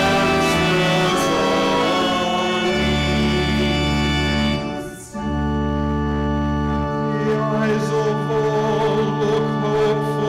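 Organ playing sustained chords with a steady bass line, with a singing voice over it during liturgical music. The music breaks off briefly about five seconds in, then the organ resumes.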